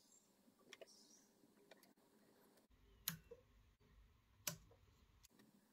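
Two sharp snips of small fly-tying scissors, about a second and a half apart, against near silence with a few faint handling clicks.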